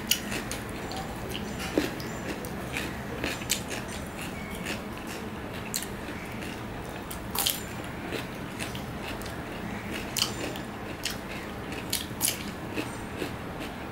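Biting into and chewing raw cucumber, with irregular crisp crunches and mouth sounds, several a few seconds apart.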